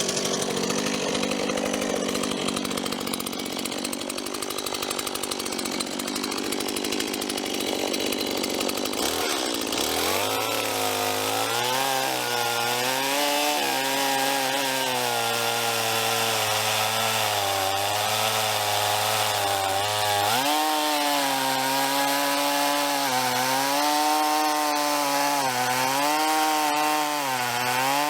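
Chainsaw running at high speed, then cutting into a log from about ten seconds in. Its engine note drops and wavers up and down as the chain works through the wood under load.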